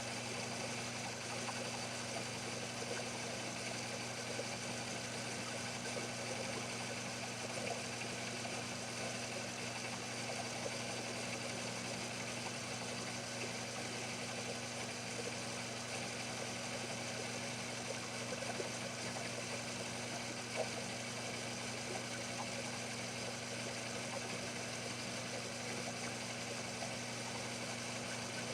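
Sherline mini lathe running steadily with a low, even hum, spindle turning on phosphor bronze stock.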